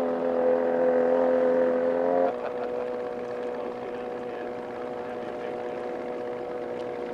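Small fishing boat's motor running steadily with a droning hum; about two seconds in it eases off abruptly and runs on more quietly.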